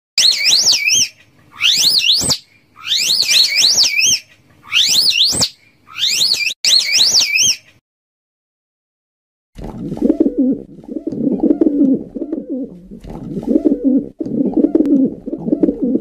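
A run of high, wavering whistled calls in about six short bursts, given as the slow loris's call; after about two seconds of silence, domestic pigeons cooing in low, rolling coos continuously to the end.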